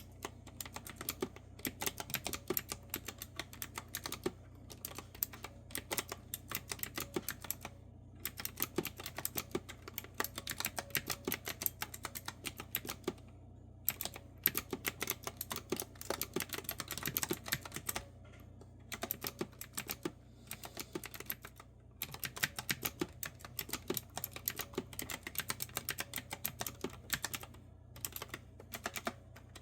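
Crisp, clicky keystrokes on a retro-style keyboard with round keys, typed in quick runs broken by short pauses.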